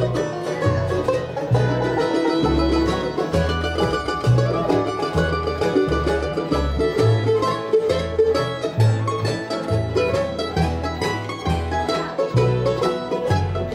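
Live bluegrass band playing an instrumental break: fast banjo picking over guitar, with a bass line keeping a steady beat.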